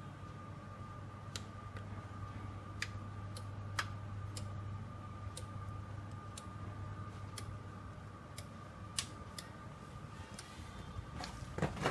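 Rack of audio equipment being switched on: a string of irregular sharp clicks, roughly one a second, as the power comes on unit by unit, over a low steady hum. A cluster of louder clicks and thumps comes near the end.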